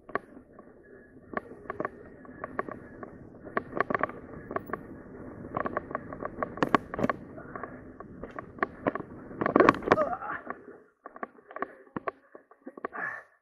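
Mountain bike rolling over a leaf-covered dirt trail: steady tyre noise with frequent sharp knocks and rattles from bumps. It eases off about eleven seconds in, leaving scattered knocks.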